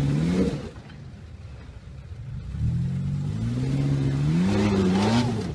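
4x4 SUV engine revving hard under load as it tries to climb a steep dirt-and-rock ledge with its wheels kicking up dust. Its pitch rises briefly at first, falls off about half a second in, then climbs again in a longer rev from about two and a half seconds in before dropping near the end.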